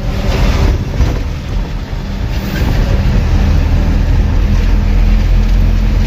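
A truck's diesel engine running under way, heard from inside the cab with road and tyre noise: a deep, steady drone that swells in the first second and then holds even.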